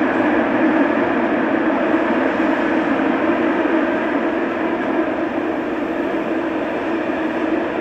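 Busan Metro Line 2 subway train with a Woojin IGBT-VVVF drive pulling into an underground station, its wheels and motors making a steady rolling rumble as the cars run past the platform, easing slightly as it slows.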